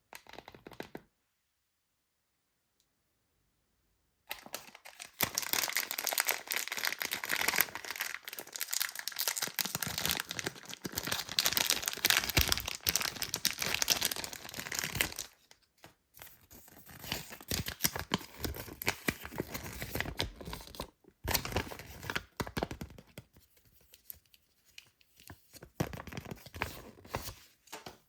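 Toy packaging being torn open and crinkled by hand, close up: long stretches of crackly tearing and rustling, with short pauses between them. A brief rustle comes first, then about three seconds of silence before the tearing starts.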